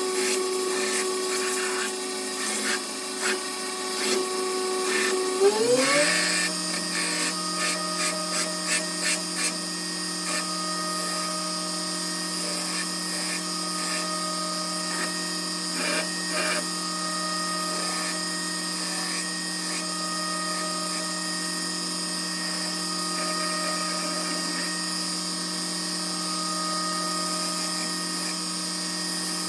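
Belt grinder running, its belt shaping the wooden handle scales of a knife. About six seconds in the motor's pitch rises as the grinder speeds up, then it runs steady, with repeated scratchy strokes as the handle is pressed to the belt.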